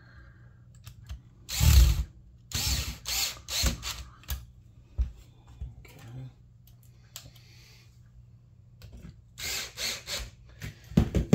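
Electric screwdriver driving screws into a copier drum unit's frame in short bursts: a run of bursts a couple of seconds in, then a second run near the end for the screw at the other end.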